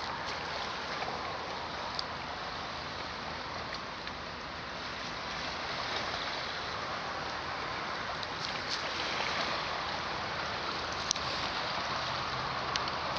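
Small lake waves lapping and splashing against a stony shore, a steady watery hiss, with a couple of short sharp clicks near the end.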